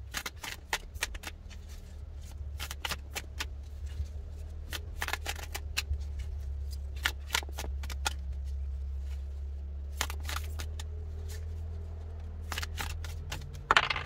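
A deck of tarot cards being shuffled by hand, a run of irregular crisp card snaps and slaps, the loudest near the end. A steady low hum sits underneath.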